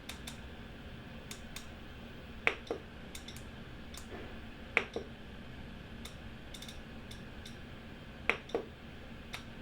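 Scattered single clicks of keys being pressed on a Julabo DYNEO DD circulator's control panel while its menu is worked through, about a dozen at uneven intervals, two of them louder, over a steady low hum.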